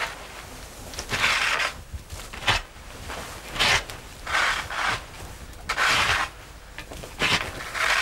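Wooden pitchfork raking and scraping through a bed of dry leaves and ferns, in separate rough strokes about once a second, as the bedding is cleared off the layer of stored ice.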